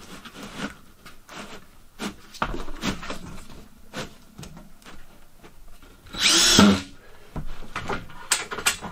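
A power drill driving a screw in one short burst about six seconds in, the loudest sound. Before and after it come scattered knocks and taps of wooden board and drywall being pushed into place against the ceiling.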